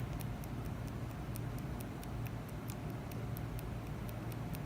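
Light, quick clicks, about four a second, from a hand-held microblading needle tool tapping pigment into eyebrow skin for ombré shading, over a steady low hum.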